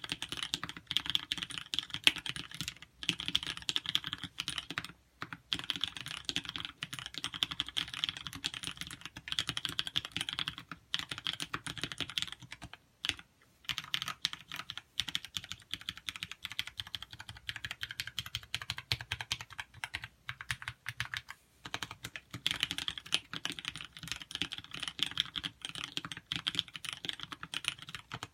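Fast, continuous typing on a custom TX84 mechanical keyboard fitted with Holy Chickies switches, dense keystroke clacks with brief pauses a few times.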